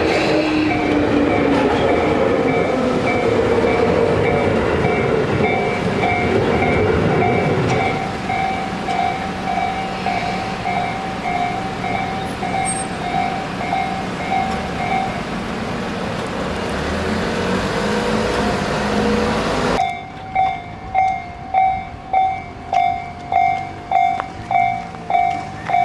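Japanese level-crossing warning bell (kan-kan) ringing in a regular beat while a Tobu Noda Line electric train passes with loud running noise and a whine that falls in pitch. About twenty seconds in, the train noise cuts off abruptly and the bell rings on alone, clear and steady, about one and a half strikes a second.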